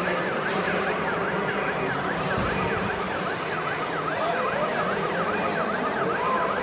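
Electronic siren from an RC model vehicle's sound unit, sweeping quickly down and up in pitch about three times a second without a break.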